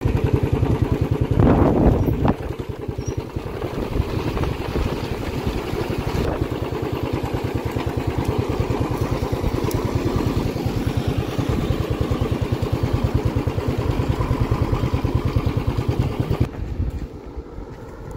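An engine running steadily with a rapid, even throb, with a louder bump about one and a half seconds in; the engine sound drops away near the end.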